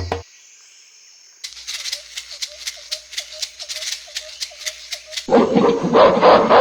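Fast rattling, like a shaker, about five shakes a second, over faint squeaks. Near the end comes a louder, rough, noisy sound.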